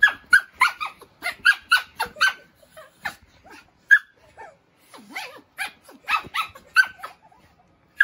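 Small dog yapping, a rapid string of short, high-pitched yips that stops about a second before the end: play barking while it is wrestled with by hand.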